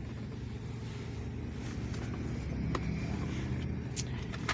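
Suzuki Every van's small three-cylinder petrol engine idling with a steady low hum, with a couple of faint clicks.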